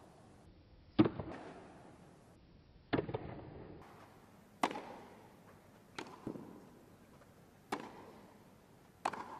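Tennis ball struck back and forth with rackets in a rally: six sharp pops spaced about one and a half to two seconds apart, a few followed closely by a fainter second knock.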